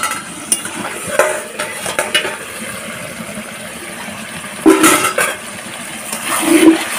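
Steel lid clinking against a steel karahi as it is lifted off, then a metal spatula scraping and knocking in the chicken curry. The loudest clatter comes about five seconds in.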